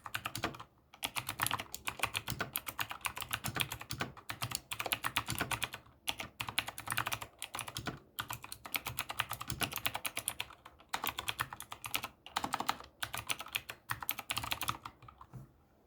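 ZIYOULANG K68 mechanical keyboard fitted with clicky blue switches being typed on fast, in quick runs of sharp key clicks broken by short pauses. The typing stops shortly before the end.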